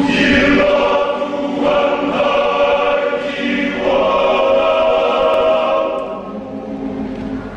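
Men's choir singing in sustained, full chords, the phrases changing every second or two; it grows softer in the last second.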